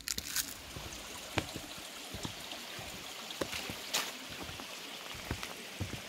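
Small spring-fed stream running steadily, with a few light clicks scattered through it.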